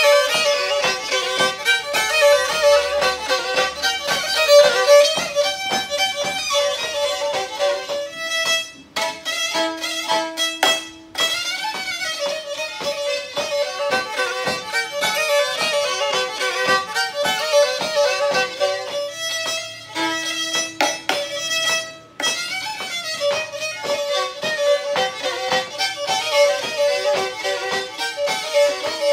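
Black Sea (Karadeniz) kemençe, a small three-stringed bowed fiddle, played solo in the Görele style: a fast tune in quick bowed notes. Twice, about ten and twenty seconds in, the run breaks off and a lower note is held for a second or two.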